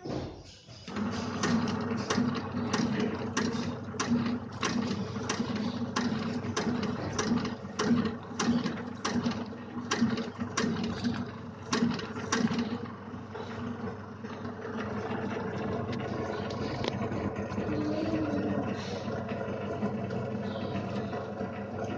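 Automatic pouch packing machine starting up about a second in and running with a steady motor hum and a regular clack about every two-thirds of a second. Past the middle the clacking stops while the hum carries on.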